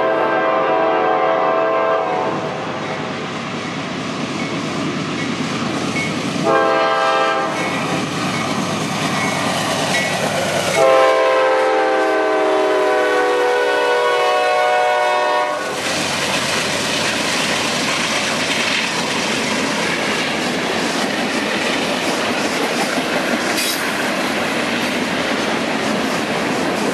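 Lead diesel locomotive's air horn, a CSX GE C40-8W, sounding a grade-crossing pattern: the tail of a long blast, a short blast, then a long blast as the freight train approaches. The locomotives then pass close by and the freight cars roll past with steady rumbling and clickety-clack of wheels over rail joints.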